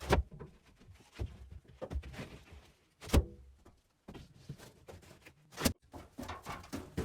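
Scattered knocks and thumps of building materials being brought down the narrowed steel stairs into the basement, the loudest about three seconds in and another sharp one near six seconds.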